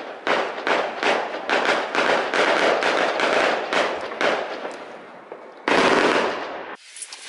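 New Year's fireworks going off: a rapid, overlapping volley of bangs and crackles. About six seconds in comes a louder, denser stretch, which cuts off abruptly.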